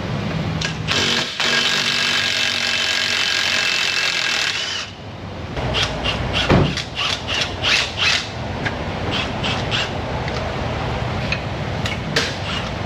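A power tool runs steadily for about three and a half seconds while the nuts on a new suspension control-arm bolt are run down, then a quick series of sharp metal clanks and knocks, with a few more scattered ones near the end.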